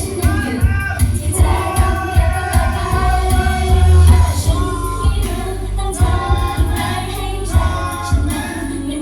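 Pop song with several female voices singing over a heavy bass beat.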